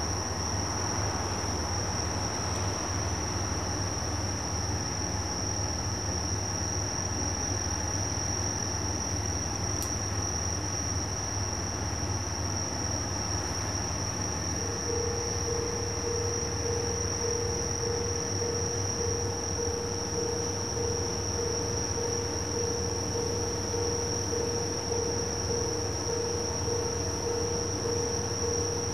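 Night insects, crickets, singing in one continuous high-pitched trill over a steady low hum. A steady mid-pitched tone joins about halfway through.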